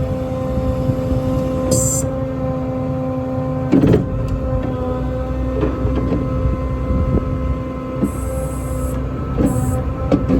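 International DuraStar truck running with a steady hydraulic pump hum as the service body's outriggers are retracted, with a loud clunk about four seconds in, smaller clicks, and a few short hisses.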